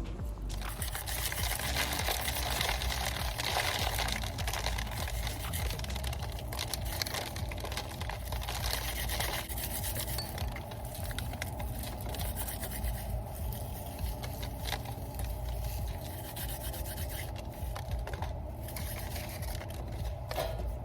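Dry collard green stalks and seed pods rustling and crackling as they are handled and pulled out, a continuous scratchy rubbing with many small crackles.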